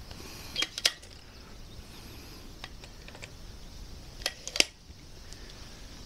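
Sharp mechanical clicks and clacks of an AirForce Texan .50 big bore air rifle being handled at the bench, in two quick pairs: one near the start and a louder one about four seconds in.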